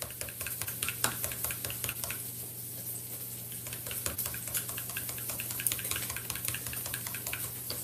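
Metal blending fork beating eggs into milk in a glass measuring cup: quick, uneven clicks and scrapes of the tines against the glass.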